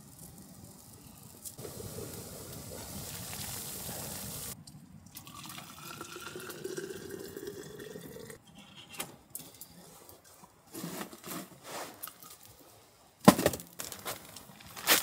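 Hot water poured from a cook pot into a clear bottle, its gurgling pitch rising steadily for about three seconds as the bottle fills. Then light rustling and knocks of gear being handled, with a sharp clack near the end.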